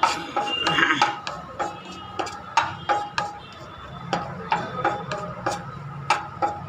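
Cashews being stirred as they roast in ghee in a metal frying pan: the stirring utensil knocks and scrapes against the pan about twice a second, each knock leaving a short metallic ring, over a faint sizzle.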